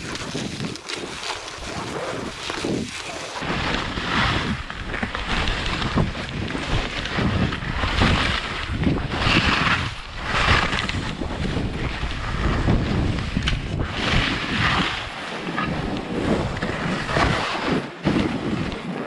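Skis scraping and swishing over packed snow in a string of quick turns, a swish with each turn, with wind rumbling on the camera's microphone.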